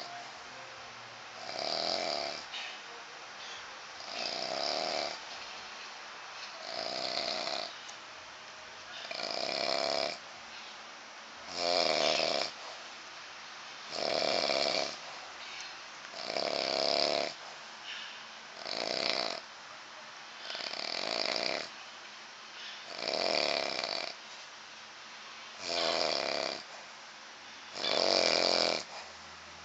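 A man snoring loudly and steadily, with one rasping snore about every two and a half seconds.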